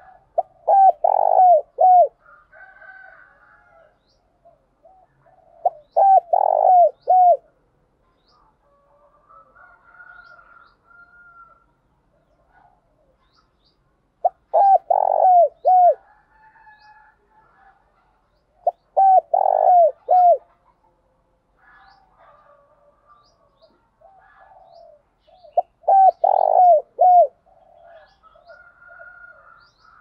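Spotted dove giving its calling coo song: five phrases of several quick coos each, spaced several seconds apart. Fainter chirping of small birds runs between the phrases.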